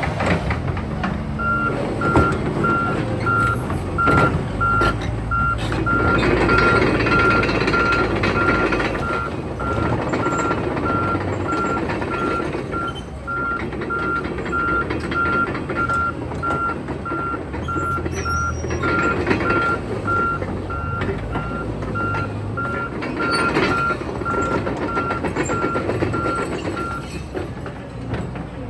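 Volvo EC160DL excavator's travel alarm beeping steadily at one pitch, about one and a half beeps a second, over its running diesel engine and hydraulics, which grow louder several times under load as the tracks are run.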